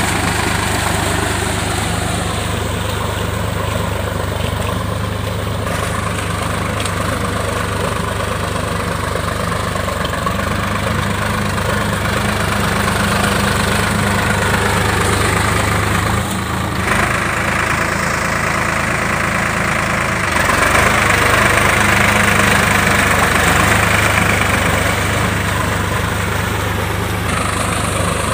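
Sonalika DI-50 tractor's diesel engine running steadily under load while it pulls a cultivator through flooded paddy mud on steel cage wheels, with water and mud churning around the wheels.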